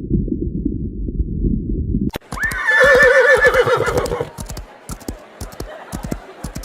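A low rumble for about two seconds, then a horse whinnies once: a quavering call that starts high and drops, lasting about two seconds. Scattered sharp clicks follow.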